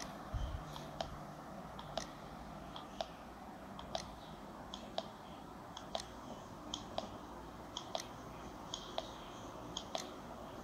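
Sharp clicks about once a second, with fainter small clicks in between, over a low hiss. These are the once-a-second drive pulses of a quartz clock's stepper motor, picked up by a coil over the movement and made audible by an audio amplifier.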